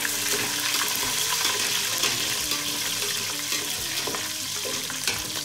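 Green chillies and whole spices sizzling in hot ghee and oil in an aluminium pot, stirred with a slotted metal spoon that clicks and scrapes against the pot.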